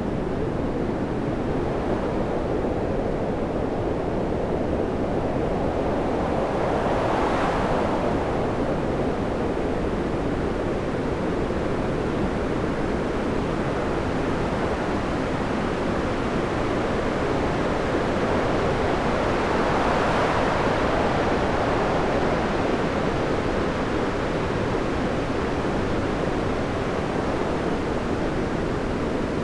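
Stormy sea: continuous rough surf and crashing waves, with two larger waves swelling about a third and two thirds of the way through.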